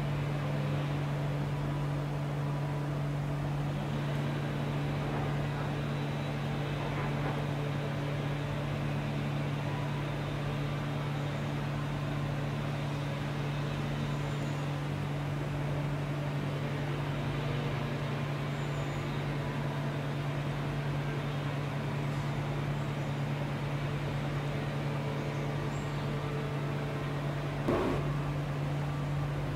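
A steady low mechanical hum with a constant pitch, with one brief louder sound about two seconds before the end.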